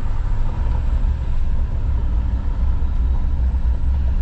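Truck driving slowly: a steady low engine and road rumble.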